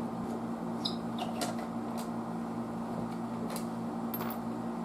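Steady low electrical hum from the powered tube amplifier setup, with a few faint clicks and taps.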